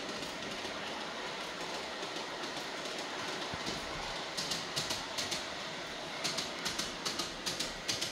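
Model train running along a shelf-mounted track: a steady rolling rumble, with runs of sharp clicks of about five a second as the wheels pass over rail joints, around four to five seconds in and again near the end.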